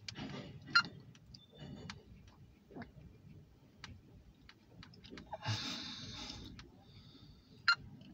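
Scattered small clicks and taps at irregular intervals, the sharpest about a second in and near the end, with a short hiss a little past the middle.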